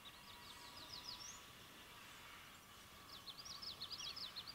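Faint songbird song: two quick phrases of short, high, down-slurred notes, one near the start and a louder one from about three seconds in, over a faint steady hum.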